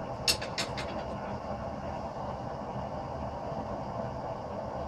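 Blower-fed propane forge running with a steady roar. Four sharp clicks come close together in the first second.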